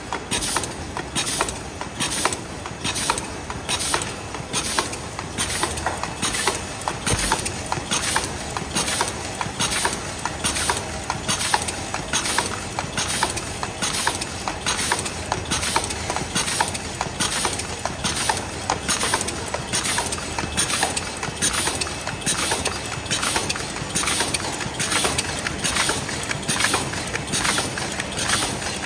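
WT22 double-wall paper cup machine running at production speed, its rotating turret and forming stations indexing with an even, quick rhythm of sharp mechanical clacks.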